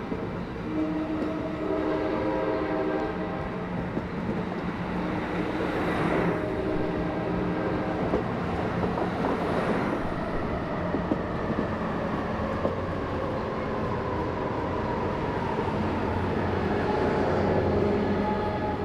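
Passenger train locomotive horn sounding the grade-crossing warning, which quiet-zone rules would normally silence: a long chord blast near the start and a shorter one about five seconds in. After that the train runs past with a steady engine drone and rail noise.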